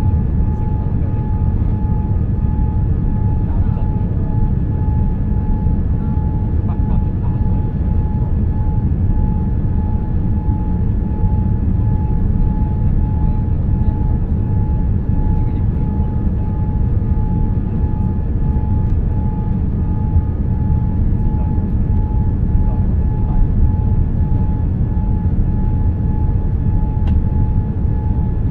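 Steady cabin noise inside a Boeing 787-9 airliner on approach with flaps extended: a low, even rumble of engines and airflow, with a thin steady tone running through it.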